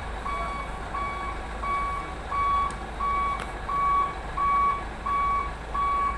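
A truck's reversing alarm beeping a steady single tone, about one and a half beeps a second, the sign that the truck is in reverse gear. A low diesel truck engine rumble runs beneath, with one sharp click about halfway through.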